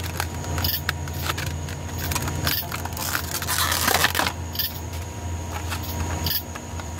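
Plastic packaging being peeled open by hand: scattered crinkles and crackles, densest about halfway through, over a steady low hum.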